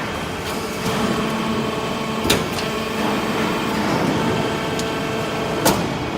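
Vertical hydraulic baler running with a steady mechanical hum made of several steady tones, as it compacts aluminium scrap. Two sharp metallic clanks come about two seconds in and near the end.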